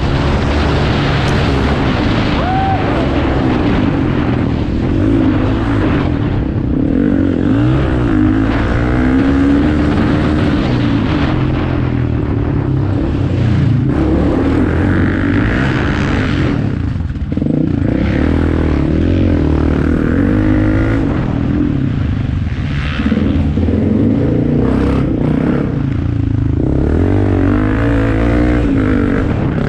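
Off-road racing motorcycle engines running and revving, their pitch rising and falling repeatedly.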